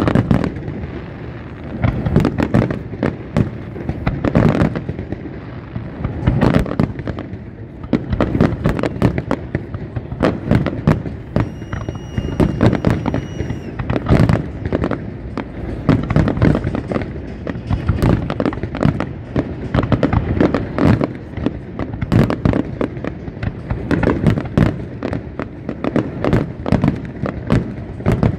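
Fireworks display: a dense, continuous barrage of shell bursts, bangs and crackle. A steady high whistle sounds for about two seconds around the middle.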